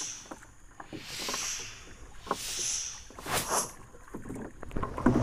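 Wooden paddle strokes in the sea beside a small outrigger boat: a swish of water repeating a little over a second apart, with a few sharp knocks in between. A loud rush of noise comes in at the very end.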